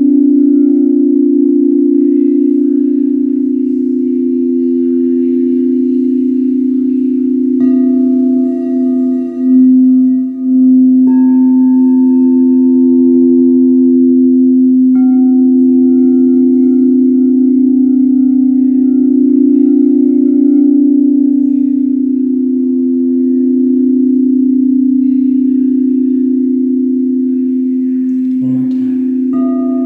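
Crystal singing bowls ringing together in a steady, sustained drone. New higher-pitched bowl tones join about eight, eleven and fifteen seconds in, and again near the end.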